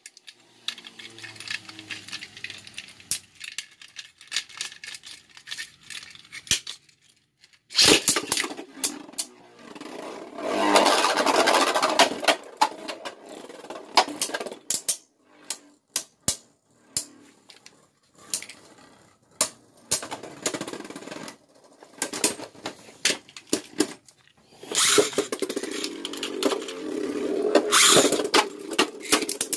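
Beyblade Burst spinning tops launched into a plastic stadium, twice (about eight seconds in and near the end): each launch is a sudden loud burst, followed by several seconds of rattling whir as the tops spin, scrape and clash. Between rounds come scattered sharp clacks of the tops hitting each other and the stadium walls.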